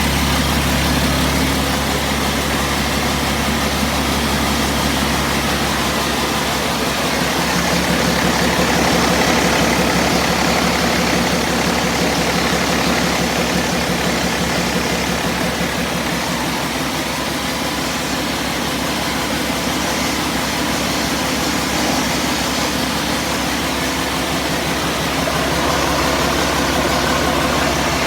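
YaMZ-653 common-rail diesel engine running steadily during its hot run-in after a repair.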